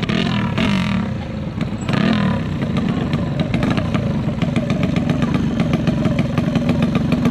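A 125 cc trailbike drag-racing engine, bored to 57 mm, running steadily with a fast, even rattle of firing pulses.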